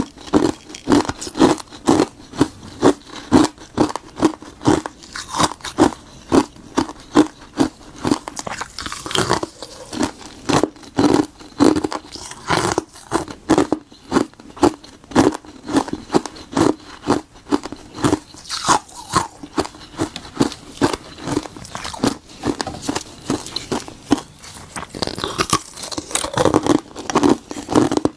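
Ice frozen from boiled tartary buckwheat water being bitten and chewed: a steady run of crisp cracking crunches, about two a second.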